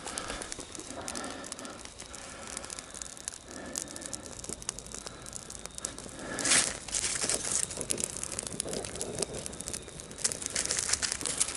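Small fire of dry twig kindling catching and crackling, with many sharp little pops that come thicker in the second half. There is a brief louder rush about six seconds in.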